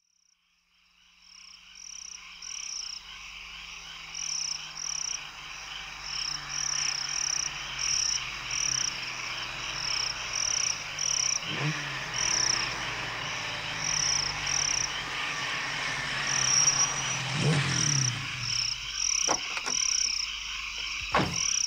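Chorus of frogs and insects fading in, with steady chirping and regularly repeated croaking calls. Two low rushing swells rise and fade partway through, and a few sharp knocks come near the end.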